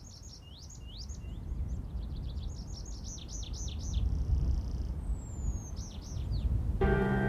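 Wild songbirds singing in quick runs of chirps and trills, over a low steady rumble that slowly grows louder. Near the end, music comes in with a few long held notes.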